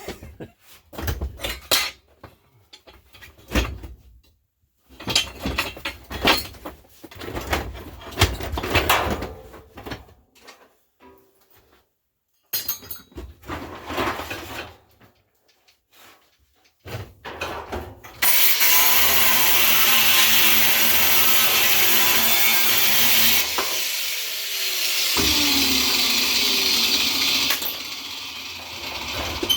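Scattered knocks and clanks of handling tools and metal, then about 18 seconds in a power cutting tool starts cutting through the steel of the old winch mounting, a loud, steady, high rushing noise. Its pitch sinks briefly near the end as the tool bogs under load.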